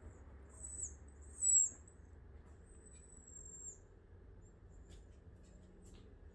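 Maltipoo puppy whining to be let up onto the bed: three thin, high-pitched whines in the first few seconds, the second the loudest and the third long and dropping in pitch at its end. A few faint clicks follow later.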